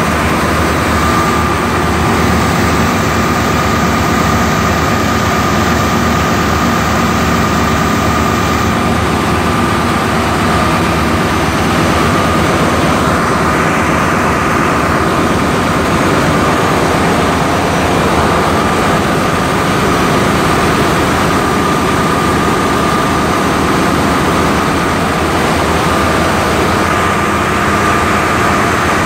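Three-phase 380-volt hermetic compressor of a bridge air-conditioning unit running, a loud steady machine hum with a constant high whine over it.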